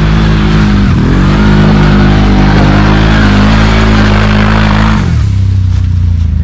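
ATV engine under heavy throttle climbing a steep slope covered in loose leaves. Its pitch dips and then rises about a second in and holds. About five seconds in the throttle drops off suddenly to a lower, rougher running as the machine passes by.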